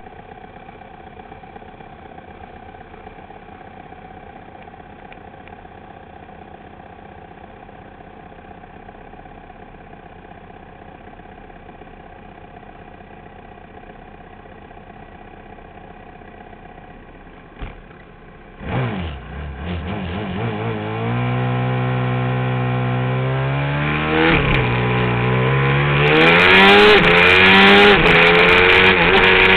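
Supermoto motorcycle engines idling steadily on the start grid. About two-thirds of the way in there is a short click, then the onboard bike's engine revs hard at the race start and accelerates up through the gears, its pitch climbing and dropping back at each shift as it gets louder.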